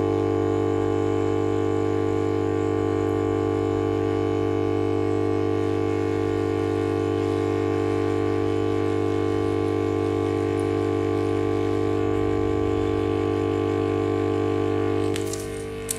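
Hot air rework gun running steadily, its blower making a constant hum with a strong low tone, as it heats the LED backlight driver chip on a laptop screen's LED strip board. The hum drops away about a second before the end.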